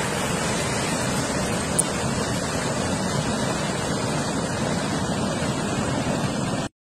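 Continuous rushing noise of a large landslide, rock and debris falling down a mountainside, with a heavy low rumble. It cuts off suddenly near the end.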